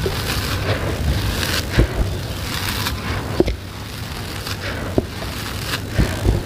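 Dry, gritty sand-and-cement mix pouring through fingers onto a heap: a steady gritty hiss with a few sharp ticks of small stones, and hands pressing into the heap near the end.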